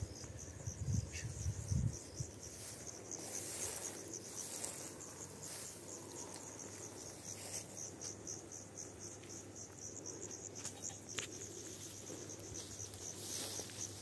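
Insects chirring in a steady, evenly pulsed high trill, with a low wind rumble on the microphone in the first couple of seconds.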